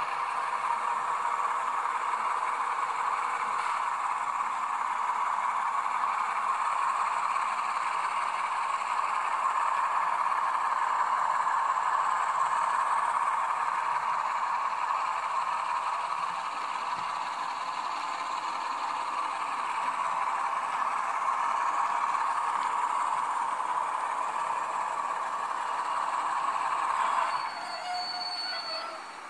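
Model of the SNCF CC 65505 diesel locomotive running steadily as it pushes freight wagons, a continuous engine and rolling sound. The sound drops sharply about 27 seconds in as the locomotive stops, followed by a brief high squeal and a short falling tone.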